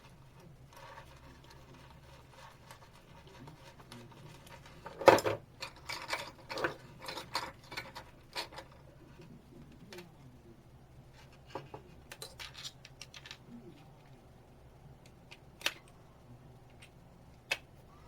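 Car door lock actuator being screwed onto a mine chassis by hand: scattered clicks, taps and scrapes of the parts being handled and screwed, with a sharp knock about five seconds in followed by a busy run of clicks, and another cluster later on.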